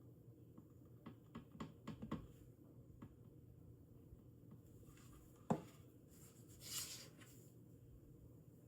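Quiet workbench handling: a few small light taps and clicks as small model parts are set in place, then one sharper knock about halfway through and a brief soft hiss shortly after.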